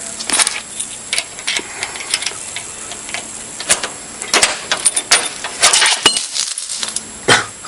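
Small metal parts clicking and rattling in scattered, irregular knocks and jingles: a padlock, its key and a chain being handled as the lock is worked off.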